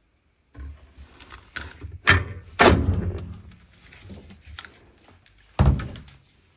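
Several thuds and knocks, like objects being handled and set down, with rustling between them; the loudest come about two and a half seconds in, and another sharp one near the end.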